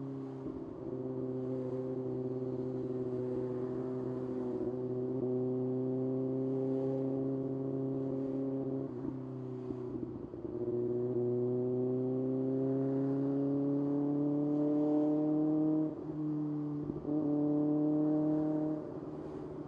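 Kawasaki ZX-6R's inline-four engine running under way, its note climbing slowly as the bike pulls. It is broken several times by short dips in pitch and level, about midway and twice near the end.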